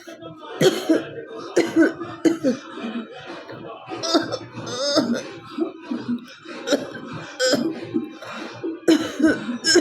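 A woman coughing hard and repeatedly on purpose, with throat-clearing and hawking, in sharp bursts about once a second.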